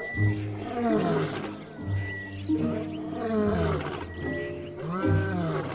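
Adult male lion roaring, a repeated series of deep calls that each fall in pitch. This is the territorial roar of a male patrolling his borders.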